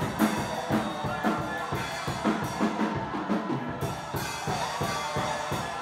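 Live band music without singing: a drum kit keeps a steady beat of bass drum, snare and rimshot hits over held instrumental tones.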